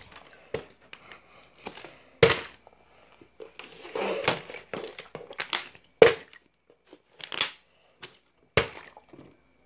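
Plastic water bottle being flipped onto a wooden floor: several sharp knocks and thuds as it lands and falls over, with crinkling plastic in between.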